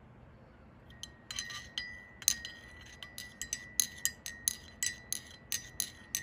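A glass stirring rod clinking against the inside of a ceramic mug as water is stirred, starting about a second in and going on at a few clinks a second, with the mug ringing faintly between strikes.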